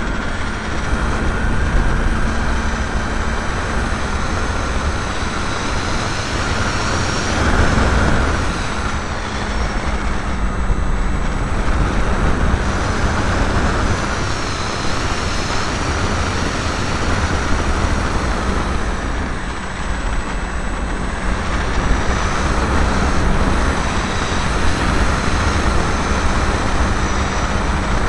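Loud rushing wind over an onboard keychain camera's microphone on a ParkZone T-28 electric RC plane in flight, with the steady hum of its electric motor and propeller underneath, its pitch shifting a little now and then.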